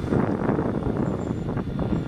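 Wind buffeting the microphone over the low running noise of a passing light-rail tram.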